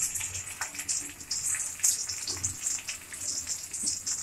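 Spice-stuffed okra pods sizzling in a little hot oil in a metal kadai, a steady high hiss with small crackles, and light clicks as more pods are laid into the pan.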